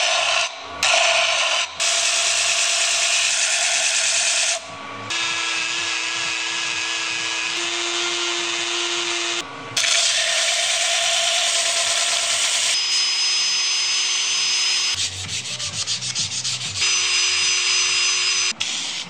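A walnut letter-opener blank sanded against an abrasive disc spinning on a lathe, in several clips that cut in and out abruptly, some with a steady motor hum beneath the rubbing. Near the end there are quick back-and-forth strokes of hand sanding on the blade.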